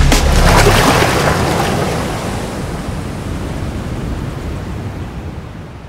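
A wash of ocean surf noise that swells about a second in, then slowly fades out.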